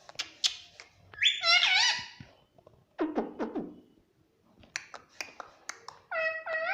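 Pet parrot calling and chattering: drawn-out calls that slide up and down in pitch, a burst of lower, quicker sounds midway, and sharp tongue-like clicks between them.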